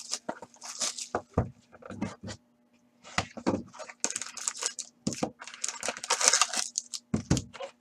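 Plastic shrink-wrap crinkling and tearing as it is stripped off a hockey card box, with cardboard rustling and a few light knocks as the box lid is opened and the pack lifted out.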